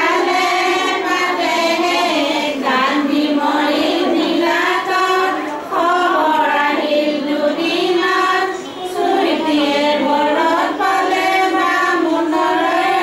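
A group of women singing a traditional Assamese ceremonial song together in one continuous melodic line.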